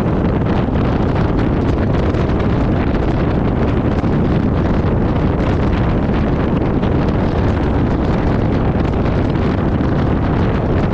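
Steady, loud wind rush buffeting the microphone of a moving camera, heaviest in the low end, with no distinct events standing out.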